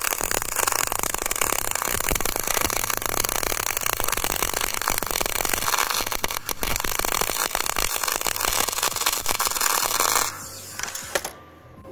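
Semi-automatic wire-feed arc welding: the arc crackles and sputters steadily while a downhand fillet weld pass is laid, with the welding voltage set too high. The arc stops about ten seconds in.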